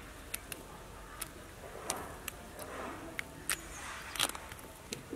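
Hands plucking wet feathers from a turkey: a steady low rustle with irregular small clicks and snaps as the feathers are pulled and dropped.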